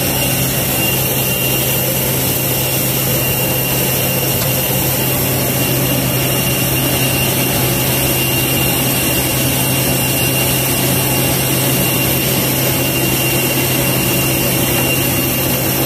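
Aviation refuelling truck's engine and pump running steadily while delivering fuel: a constant low hum with a thin steady high whine above it.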